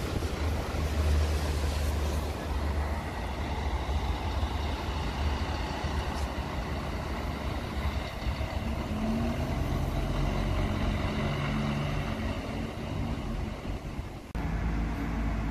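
Diesel bus engines running: a steady low engine rumble, with a higher engine hum joining about eight seconds in. The sound changes abruptly near the end.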